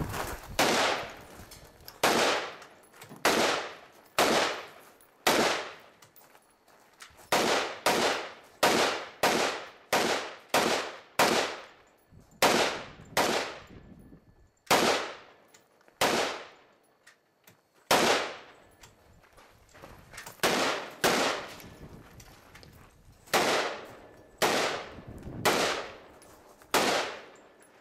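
Rifle shots fired in a timed string, about two dozen in all. They come in quick runs about a second or less apart, broken by a few longer pauses of one to two seconds, and each crack is followed by a short echo.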